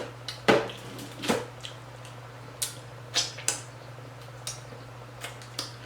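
Someone chewing hard-shell tacos: about ten irregular sharp crunches and mouth clicks, over a faint steady low hum.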